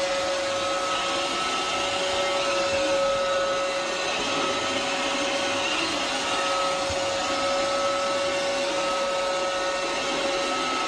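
Robot vacuum cleaner running steadily: an even whirring hiss with a constant mid-pitched hum.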